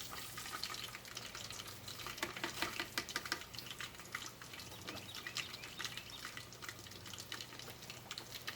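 Hot oil in a deep fryer crackling and sizzling around bratwursts, a dense run of small pops that is thickest about two to three seconds in.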